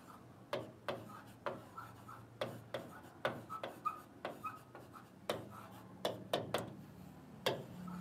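Pen tapping and sliding on the glass of an interactive touchscreen board while writing, a string of sharp irregular clicks, about two to three a second.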